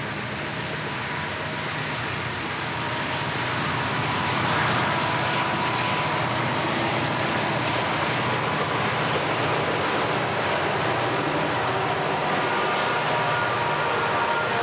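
Several diesel freight locomotives working hard under load as they pass, their engine drone growing louder about four seconds in, with a steady high whine over it. Loaded covered hopper cars follow, rolling by with steady wheel-on-rail noise.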